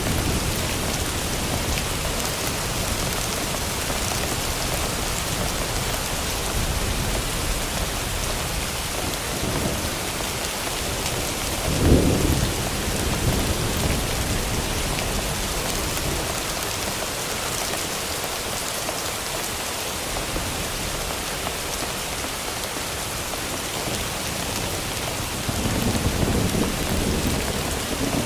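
Thunderstorm ambience: steady rain with low thunder rumbles. The rumbles fade out over the first seconds, a sharp thunderclap comes about twelve seconds in, and a new rumble builds near the end.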